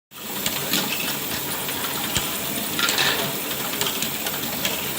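Engine running with a misfire: a steady running noise broken by irregular, unevenly spaced knocks.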